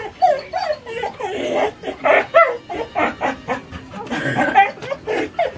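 Dog barking and yipping in rapid, excited bursts, several calls a second, as it jumps at a balloon it wants.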